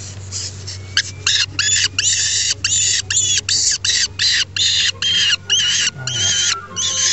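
Peregrine falcon chick calling loudly and repeatedly while being held, short high calls at about three a second, starting about a second in.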